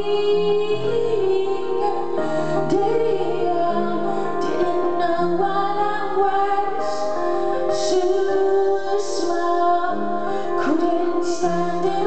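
A woman singing a slow song live, accompanying herself on a Bösendorfer grand piano and a keyboard, with long held sung notes over sustained chords.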